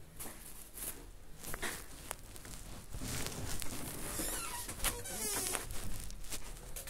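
Pink plastic bag rustling and crinkling as a hand rummages in it, with irregular clicks and scrapes of handling close to the phone, busiest about four to six seconds in.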